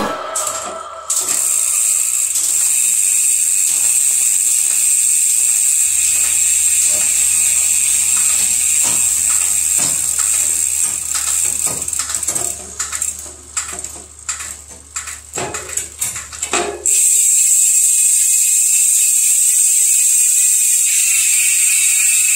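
A mountain bike's rear wheel and drivetrain spinning in a work stand, cranked by hand: a steady ratcheting buzz from the freehub and the running chain. A stretch of irregular clicking from the chain and derailleur comes a little over halfway through, then the steady buzz returns.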